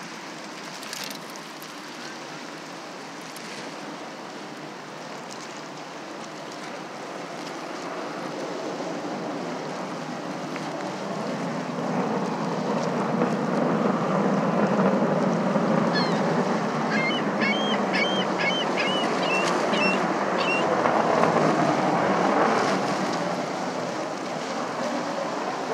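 Engine noise of a distant hovering jet aircraft, a steady rushing sound that builds through the middle and eases near the end.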